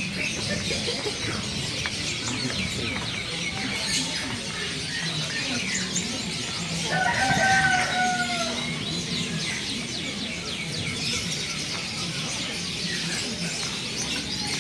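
A rooster crows once, about seven seconds in, a drawn-out call that dips at its end. Many small caged birds chirp continuously throughout.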